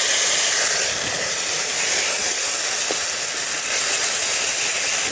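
Wet ginger-cumin paste sizzling loudly in hot oil with frying onions and chillies in a kadai. It is a steady hiss that began as the paste hit the oil.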